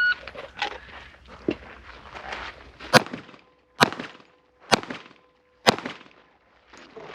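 A shot timer beeps once, and about three seconds later a pistol fires four shots, roughly a second apart.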